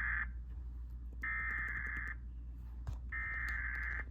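Emergency Alert System SAME header: bursts of digital data tone about a second each, a second apart, heard as the end of one burst and then two more. They are the coded header that opens a severe thunderstorm warning broadcast.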